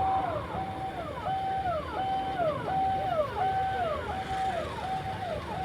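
Electronic vehicle siren sounding a repeating cycle: a held tone that then slides down in pitch, about three cycles every two seconds, over a low rumble of traffic.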